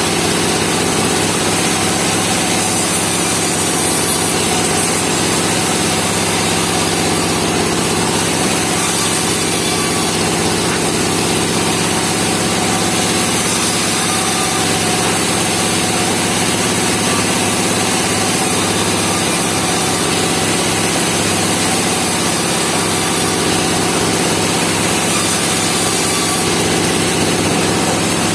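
Portable band sawmill running steadily, its engine holding one even note with the blade's high hiss over it.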